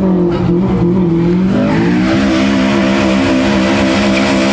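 Car engine held at high revs, its pitch climbing about a second and a half in and then holding steady, with a rising hiss of tires spinning and squealing on pavement in a burnout.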